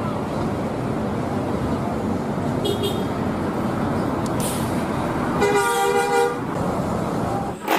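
Road traffic and passing coach buses, a steady rumble of engines and tyres, with a loud bus horn sounding one steady chord for about a second, about five and a half seconds in.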